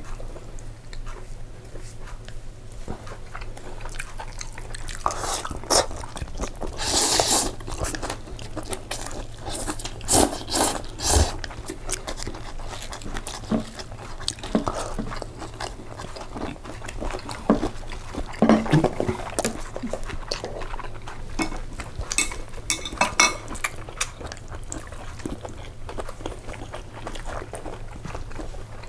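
Close-miked eating sounds of a person eating pasta: irregular chewing and biting, with clusters of louder, crunchy bites every few seconds.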